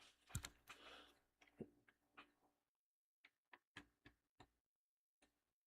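Near silence with faint handling noise: a soft knock and some rustling in the first second or so, then a few light, scattered clicks in the second half.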